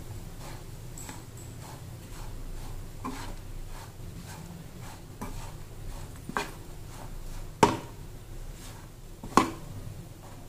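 Metal spatula stirring and scraping crumbly raw banana fry around a frying pan, with light clicks and three sharp knocks of the spatula on the pan in the second half, over a low steady hum.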